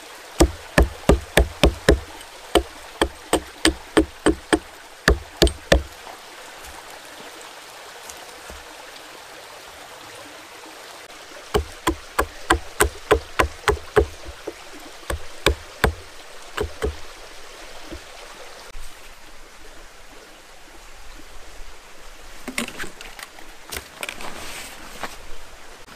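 Hatchet chopping into a thin wooden stick resting on a log: a run of sharp knocks about three a second for the first six seconds, then a second run from about 11 seconds in. In the last seconds there are softer, irregular rustles of a fabric tent sheet being spread on the ground.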